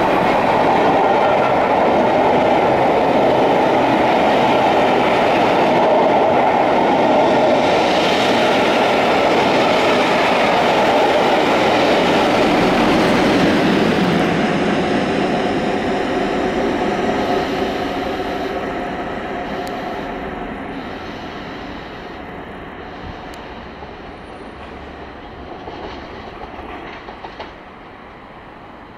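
A passenger train's coaches passing close at speed, their wheels running loudly over the rails, then the rear diesel locomotive, a Class 47, going by about halfway through as the train noise fades steadily away into the distance.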